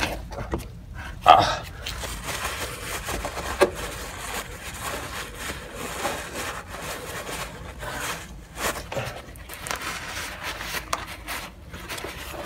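Rag rubbing and wiping spilled oil off the underside of an ATV engine around the drain plug, in uneven strokes with handling clicks, and a sharp knock about a second in.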